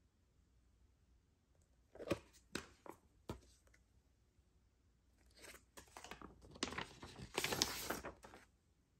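Black paper inner sleeves of vinyl LPs being handled: a few light taps and crisp rustles, then a longer rustling slide near the end as a white vinyl record is drawn out of its paper sleeve.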